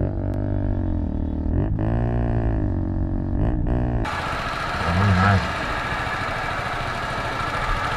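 Motorcycle engine running under way, its pitch falling and rising with the throttle. About halfway through it cuts to a steady rush of wind noise and traffic on a riding camera, with a short low hum about a second after the change.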